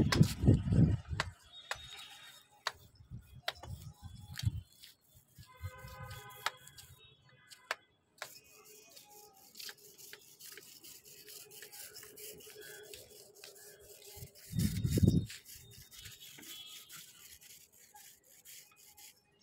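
Mason's trowel scraping and tapping on brick and mortar along the top of a wall, with many short clicks. Two loud low thumps, one at the start and one about fifteen seconds in.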